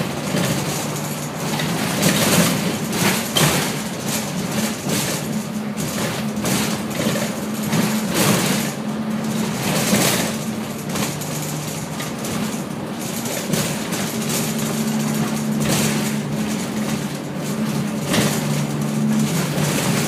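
Inside a TransBus Dart SLF single-deck bus under way: the rear-mounted diesel engine runs with a steady drone, and the body and fittings give frequent short rattles over the road noise.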